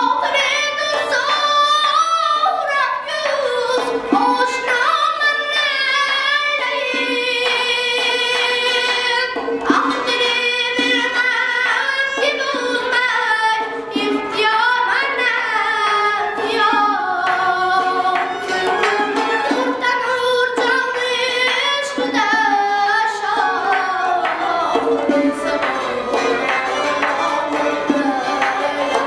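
A young male singer performing a melismatic Uzbek classical song, his voice gliding and ornamenting long phrases. A traditional ensemble of doira frame drum, gijjak spike fiddle and long-necked lutes plays along.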